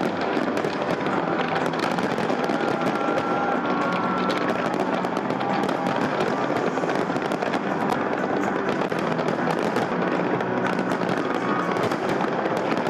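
A large fireworks display going off without a break: dense, rapid crackling with many overlapping bangs.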